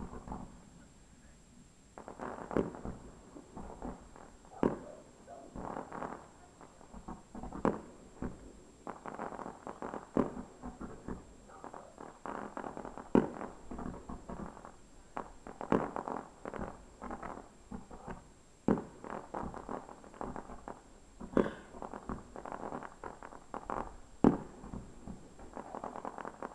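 Distant fireworks display: aerial shells bursting with sharp bangs every second or two, with clusters of smaller crackling reports between them.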